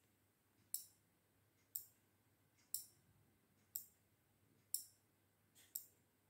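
5 V single-channel relay module clicking about once a second, six sharp clicks in all. Each click is the relay's contacts pulling in or dropping out as its coil is energized and de-energized in a one-second on/off loop, switching an LED.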